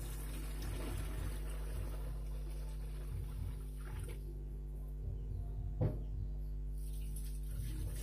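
Water poured in a stream into a large plastic tub of liquid batter mixture, splashing steadily, then stopping about four seconds in. A single short knock follows near the six-second mark.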